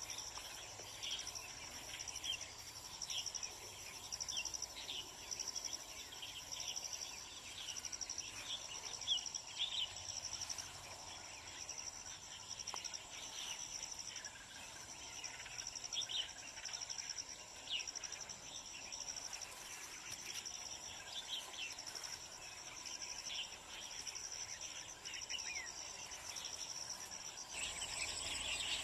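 Insects trilling in a steady train of pulses, about one a second, over a second thin steady high buzz. Short downward-sliding bird calls are scattered throughout.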